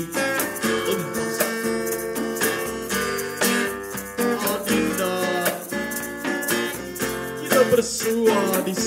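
Acoustic guitar strumming with hand drumming on a djembe, playing a song accompaniment.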